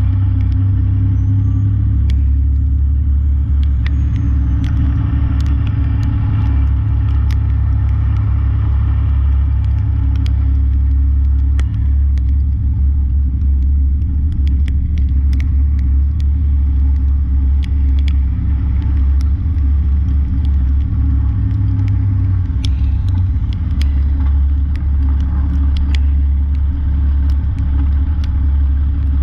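Diesel truck engine running with a steady low rumble, heard from inside the cab, with scattered small clicks and ticks over it.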